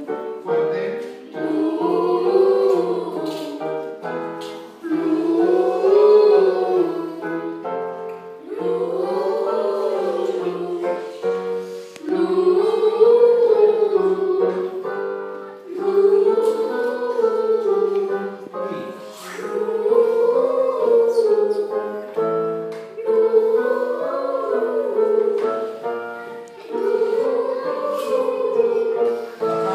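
Choir singing a vocal warm-up exercise with piano: the same short phrase rising and falling in pitch, repeated about every three and a half seconds.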